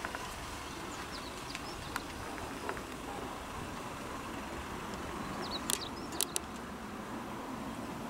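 Steady outdoor background rumble with a few short, high bird chirps, three sharp ones close together a little past the middle.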